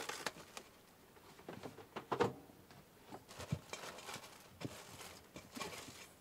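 Plastic cling wrap crinkling as it is stretched and pressed down around the rim of a stainless steel mixing bowl, in scattered soft crackles. The loudest comes about two seconds in.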